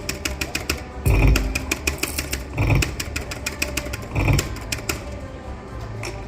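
Video slot machine spinning round after round: a low thud about every second and a half, with rapid clicking reel ticks and short electronic tones between them.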